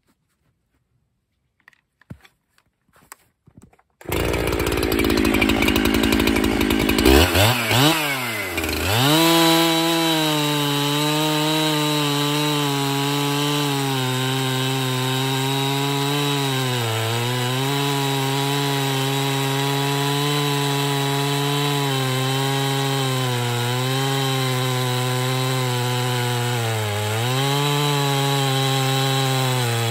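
Near silence with a few faint clicks, then about four seconds in a Husqvarna 365 Special two-stroke chainsaw comes in loud and revs up and down. From about ten seconds it runs steadily at full throttle cutting through a softwood log, its note dipping briefly twice as it bogs in the cut.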